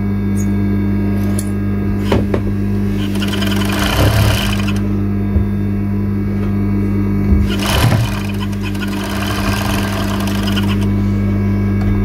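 Overlock sewing machine: its motor hums steadily, and twice it runs at speed stitching the fabric, the second spell longer. A few sharp clicks come just before the first.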